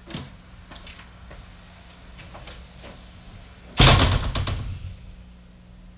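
Glass storm door swinging shut and banging into its frame about four seconds in, rattling briefly as it settles. Before it come a few light latch clicks and a soft hiss.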